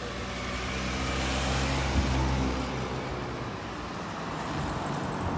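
Cars driving past close by: engine hum and tyre noise swell to a peak about two seconds in and fade, then a second car, a silver hatchback, passes near the end.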